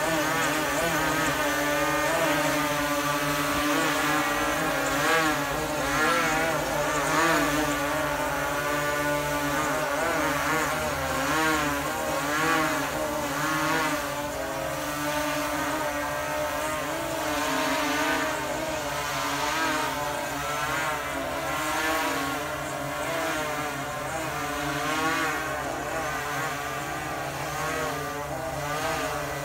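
Propeller of a fixed-wing VTOL drone in flight, a steady drone whose pitch rises and falls as it manoeuvres and passes.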